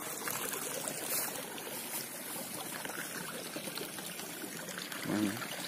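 Water trickling steadily along a small irrigation ditch, with a brief pitched sound, like a short vocal sound, about five seconds in.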